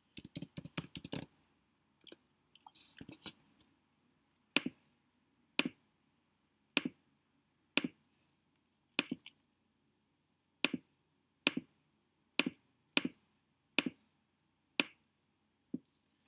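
Typing on a computer keyboard in quick bursts over the first few seconds. Then come about a dozen single sharp clicks, roughly a second apart, as fields and menu options are clicked on screen.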